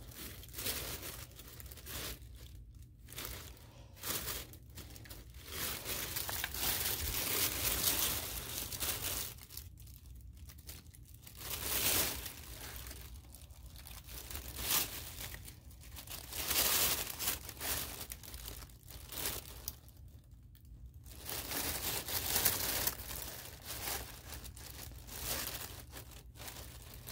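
Thin tissue paper of a sky lantern rustling and crinkling as it is handled, in irregular bursts with short quieter gaps, while its wire is twisted around a woven tiki torch canister.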